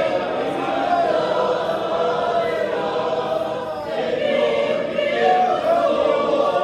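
Church choir singing a Spanish-language hymn, with a short break between phrases just before four seconds in.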